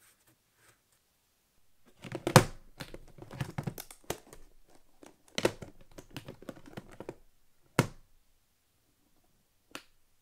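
Hands handling a small aluminium-framed case: two stretches of soft taps, scrapes and rustles, then two single sharp clicks near the end.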